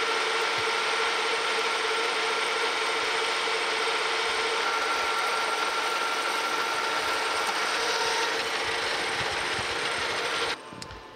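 Metal lathe running under power while turning a steel shaft in a roughing cut, a steady mechanical drone with a constant high whine from the drive. It shuts off abruptly about ten and a half seconds in.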